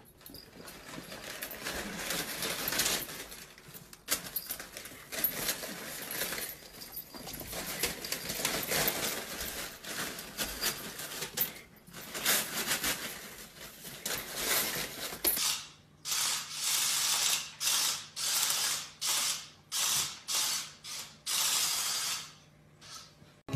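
Crumpled paper crinkling, rustling and tearing as pets roll and pounce in it. About fifteen seconds in this gives way to a run of short rustling bursts, about two a second, over a faint low hum.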